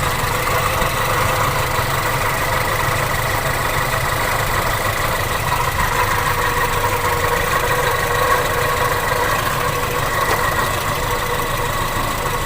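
Toyota Kijang Super's 5K four-cylinder petrol engine idling steadily, a low running note with a steady whine above it. The owner is hunting an intermittent snoring 'krok krok' noise from this engine that comes and goes.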